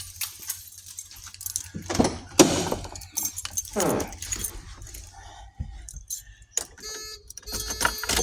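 Keys jangling and clattering with knocks and rattles, and two loud squeaks that slide in pitch about a third of the way in. A steady tone comes on near the end.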